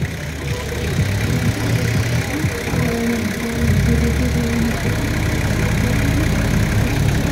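Mercedes-Benz G-Class off-roader's engine running at low revs as it crawls through mud, growing louder about halfway through as it comes closer.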